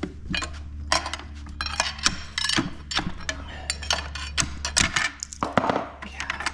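Steel pry bar and clutch discs and plates of a Caterpillar dozer transmission clinking and scraping as a stuck, heat-destroyed friction disc is pried loose and worked off the clutch pack: a run of sharp metal clinks and knocks over a steady low hum.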